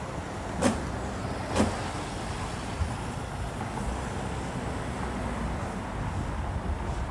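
Cars driving slowly past on a city street, a steady low rumble of engines and tyres. Two sharp clacks about a second apart in the first two seconds.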